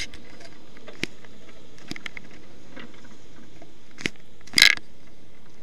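A few sharp clicks and one short, louder rustle near the end, over a steady hiss, from around a stationary electric kart.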